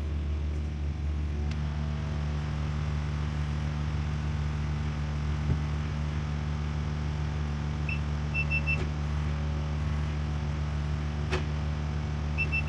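Excavator's diesel engine running at a steady speed, a constant low drone. Short high-pitched tones come in about two-thirds of the way through and again near the end.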